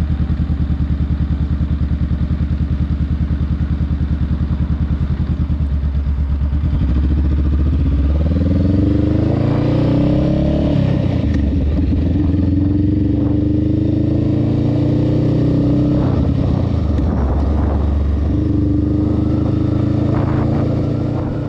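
Honda Rebel 500's parallel-twin engine with an aftermarket Vance & Hines exhaust, idling with an even pulse, then from about seven seconds in pulling away, its pitch climbing and dropping back several times as it shifts up through the gears.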